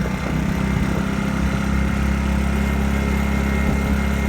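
Westinghouse iGen2500 inverter generator running, its small four-stroke engine speeding up a little near the start with efficiency (eco) mode switched off, then holding a steady, higher idle-free speed.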